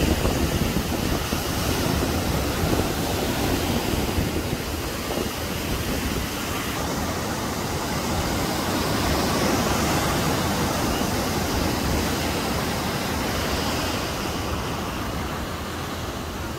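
Rough sea surf breaking and washing around the pier pilings below: a steady rush of churning, foaming water.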